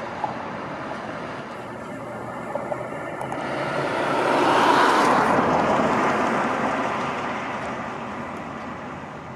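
Road traffic: a passing vehicle whose noise swells to a peak about five seconds in and then fades away.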